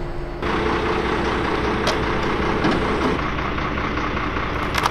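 Truck engine idling steadily, starting abruptly just under half a second in, with two short sharp clicks, one about two seconds in and one near the end.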